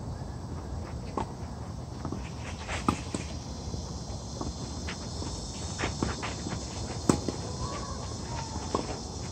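Tennis ball struck back and forth by rackets in a rally, a sharp hit every second or two, the loudest about seven seconds in. Between shots there are footsteps on the clay court.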